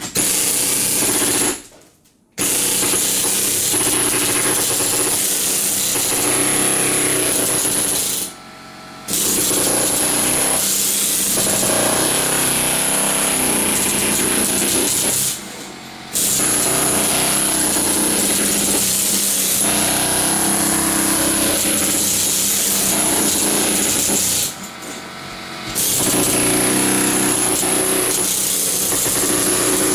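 Pneumatic air hammer with a chisel bit, hammering rapidly with a high hiss as it chips leftover tile residue off the subfloor. It runs in long stretches and stops briefly four times.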